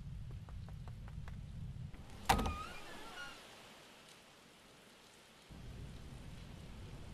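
Rain with a low rumble of thunder, then about two seconds in a door latch clicks and the hinges give a wavering creak as the door swings open. The low rumble then drops away for a couple of seconds and comes back near the end.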